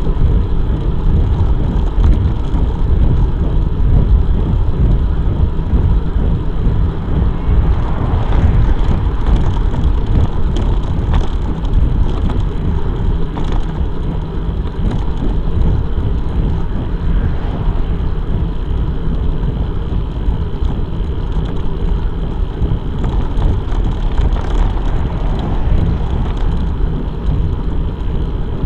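Steady wind rushing and buffeting over the microphone of a bicycle-mounted camera while riding along a road, a loud low rumble that wavers irregularly.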